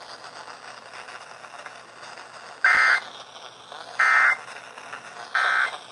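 Emergency Alert System end-of-message data: three short, buzzy digital SAME bursts about 1.3 seconds apart, the signal that the flood warning message has ended. A faint hiss lies between them.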